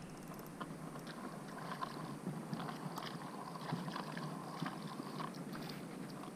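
Spincast fishing reel being cranked, a faint steady whir with light clicking, stopping about five seconds in as a hooked bluegill is brought to the surface.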